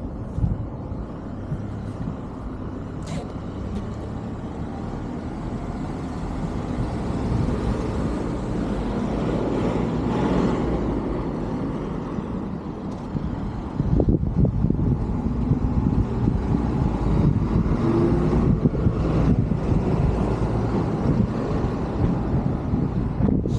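Road traffic going by: a vehicle's noise builds, passes about ten seconds in and fades. From about fourteen seconds a louder, uneven low rumble takes over.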